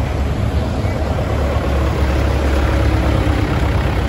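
Large modern farm tractor's diesel engine running as it drives slowly past close by, a steady deep rumble that eases slightly near the end.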